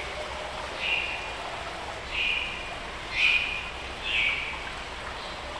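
Tropical forest ambience: a bird gives a short, slightly falling whistled call about once a second, four times, over a steady background hiss.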